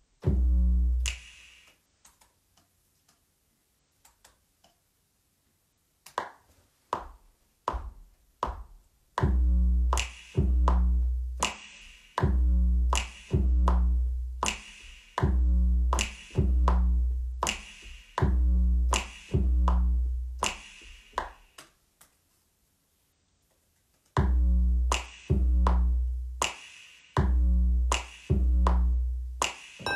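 Electronic beat played live on a keyboard: deep booming bass hits, each with a sharp click on top, about one a second. It starts and stops, going sparse for a few seconds near the start and pausing briefly a little after two-thirds of the way through before picking up again.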